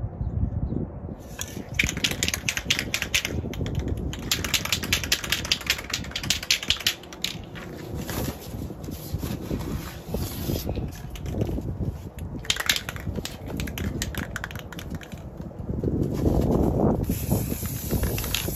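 Aerosol spray paint can spraying in several hissing bursts of a few seconds each, with short pauses between.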